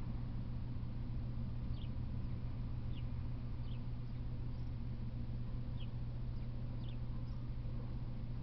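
Small bird giving short, high chirps about once a second, irregularly, over a steady low hum.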